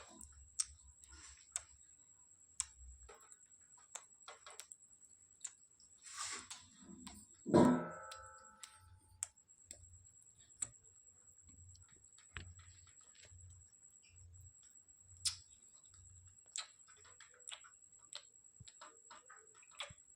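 Pet parrot making scattered faint clicks and taps, with one short pitched call about seven and a half seconds in.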